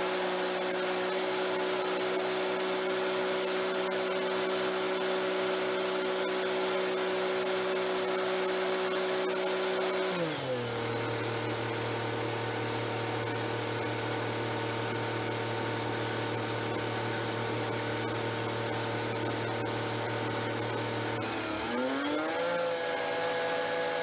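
An engine-driven Miller welder-generator runs at welding speed. About ten seconds in its engine drops to a steady idle, and a couple of seconds before the end it revs back up as a stick-electrode cutting arc is struck.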